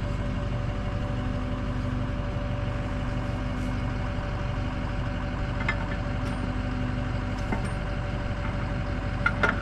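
An engine idling steadily, an even hum with a few light clicks about halfway through and a cluster of sharper metallic clicks near the end.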